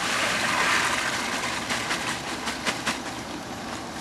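A 20-pound bag of ice cubes poured into a boat's livewell of water to chill it: a rushing clatter and splash of ice, strongest in the first second or so, easing off into a few scattered sharp clicks.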